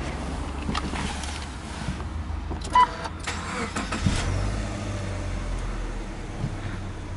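A short electronic beep about three seconds in, then the Subaru Legacy 2.5GT's EJ25 turbocharged flat-four cranks and starts about a second later and settles into a steady idle.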